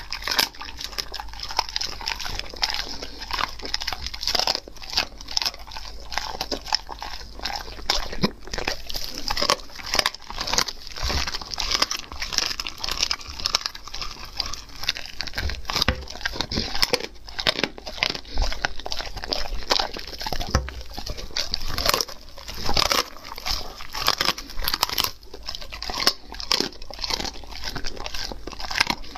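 German Shepherd chewing and biting into a roasted meat joint, close to a clip-on microphone: an irregular stream of quick crunching bites and chews throughout.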